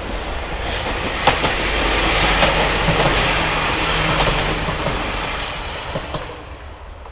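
Diesel railcar passing over a level crossing, growing loudest about two to four seconds in and then fading away, with a few sharp clacks of wheels over rail joints.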